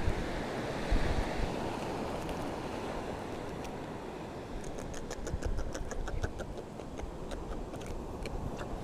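Wind buffeting the microphone over the wash of surf on a rocky shore, a steady low rumble. In the second half comes a run of faint, short high clicks.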